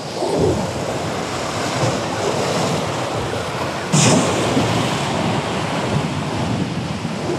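Ocean surf washing and breaking against the rocks of a jetty, a steady wash, with wind buffeting the microphone. A short louder burst comes about four seconds in.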